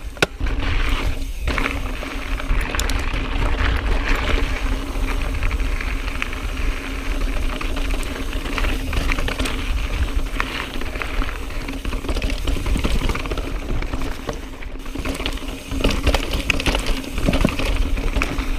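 Ride noise from a YT Jeffsy mountain bike on rocky dirt singletrack: steady wind buffeting on the action-camera microphone over the rolling tyres, with frequent small clicks and rattles from the bike over rocks and bumps.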